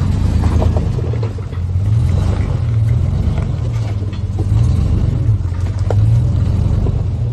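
Pickup truck's engine running at low revs as the truck crawls over rocks, its note rising and falling with small throttle changes.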